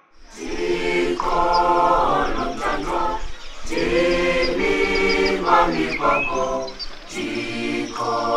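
A choir of school students singing unaccompanied, in sustained phrases with two short breaks.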